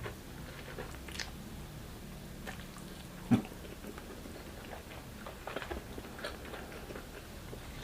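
Close-up chewing and biting mouth sounds of a person eating grilled chicken and rice: scattered short wet smacks and clicks, with one louder short mouth sound a little over three seconds in.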